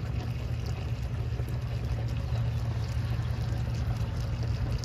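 Blue windshield washer fluid poured in a steady stream from a plastic bucket into a car's washer reservoir filler, over a constant low hum.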